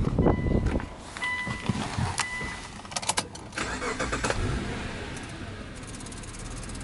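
An electronic chime, keys clicking and rattling at the ignition, then the Subaru Legacy B4 3.0R's EZ30 3.0-litre flat-six being started, settling into a steady low hum.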